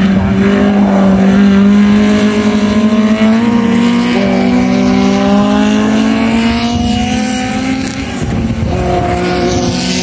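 Historic Formula Junior racing car engines accelerating past, the engine note climbing steadily in pitch. It dips for a moment about three-quarters of the way through, then a second rising engine note comes in near the end.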